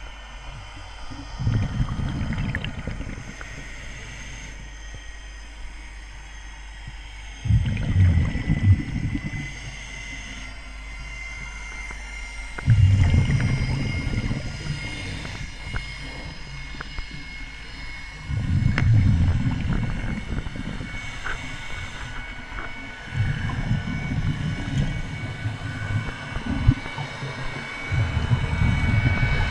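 Scuba diver's exhaled bubbles heard underwater: a low gush every five or six seconds, each lasting two to four seconds, in time with the diver's breathing. A faint steady whine, slowly rising in pitch, runs beneath.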